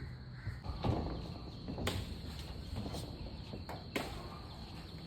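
A few scattered knocks and rustles, like footsteps and handling, over a faint steady high tone; no chainsaw is running.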